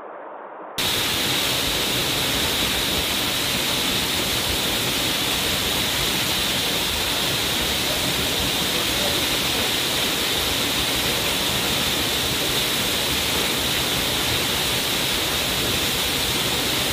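Waterfall rushing steadily, cutting in abruptly about a second in.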